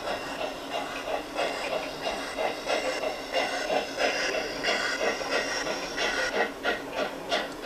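Garden-railway model steam locomotive chuffing steadily as it runs, about four puffs a second, over a continuous hiss.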